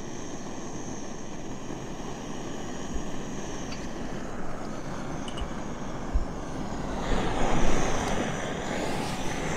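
Small gas canister stove burning at full flame under a mug of water that is about to boil over, a steady roar. It gets louder and rougher for a couple of seconds near the end, with a few low thumps.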